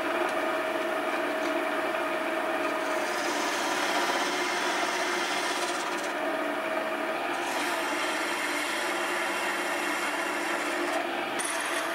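Small hobby lathe's DC motor running with a steady, slightly wavering whine while a hand-held turning tool scrapes an aluminium rod. The rasping cut comes and goes, strongest about three seconds in and again from about eight seconds.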